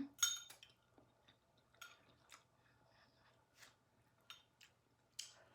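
Eating from a bowl of noodle soup: a spoon clinks against the bowl at the start, then faint, scattered chewing clicks.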